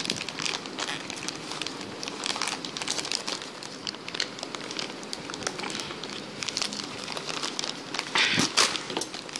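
Plastic packaging of a pack of foam darts crinkling and crackling as it is handled and worked open, with a louder burst of crinkling near the end.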